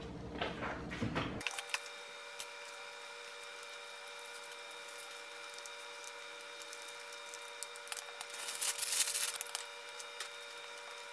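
A table knife scrapes and spreads soft cheese onto a crisp puffed rice cake. It gives a louder crackly rasp for about a second, two thirds of the way through, over a steady high hum.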